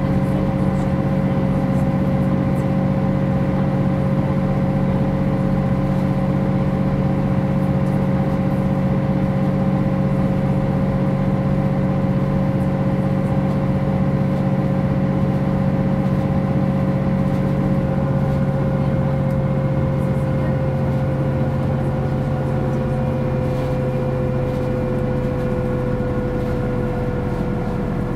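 MAN NG 262 articulated bus running steadily under way: an even diesel drone with a high, steady whine above it. In the second half the whine dips slightly in pitch and the sound eases a little, as if the bus is slowing.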